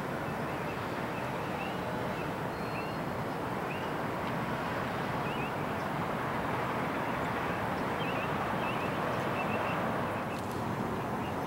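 Outdoor city ambience: a steady hiss of distant traffic, with faint short bird chirps now and then.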